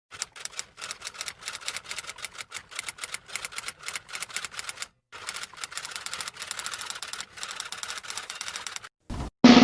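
Rapid typing: key clicks struck several times a second in an irregular run, with a short break about five seconds in. A loud drum roll starts just before the end.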